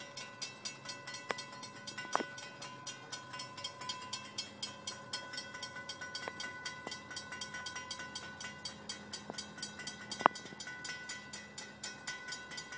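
Railroad grade-crossing warning bell ringing rapidly in an even rhythm, the signal that the crossing is activated for an approaching train. A single sharper, louder knock stands out about ten seconds in.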